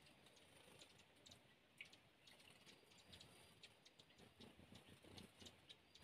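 Very faint trickle of a shallow forest stream over rocks, with light ticks and drips scattered throughout.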